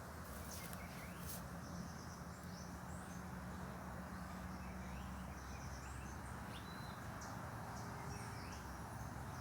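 Quiet outdoor ambience: a steady low rumble under faint short bird chirps and whistled glides, with insects.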